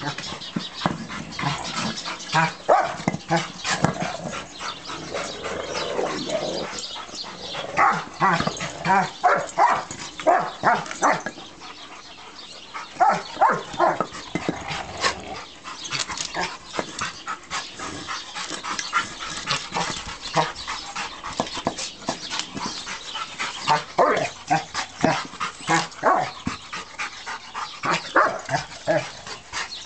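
Several rottweilers giving short, repeated yips and barks as they crowd over a brick toy, with scuffling and scraping in the dirt among the calls.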